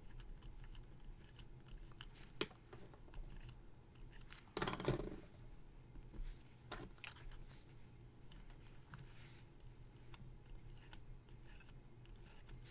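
Faint scratching of a marker writing on paper, in short separate strokes with a few soft clicks, the strongest stroke about four and a half seconds in.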